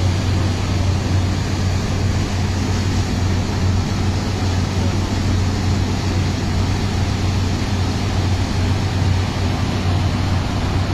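Thames Clipper river bus under way: its engines give a steady low drone over a constant rush of water and air.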